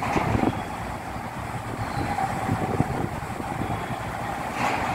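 Low rumble of a car ferry's engines and the churning of its propeller wash as it pulls away from the berth, with wind buffeting the microphone.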